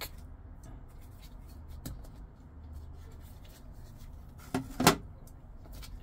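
A folding knife handled by a gloved hand, with faint ticks and then two sharp clacks about five seconds in, over a steady low hum.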